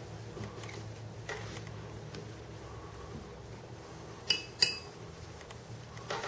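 Two sharp clinks about a third of a second apart, a paintbrush knocking against a glass water jar, each with a brief glassy ring, over a low steady hum.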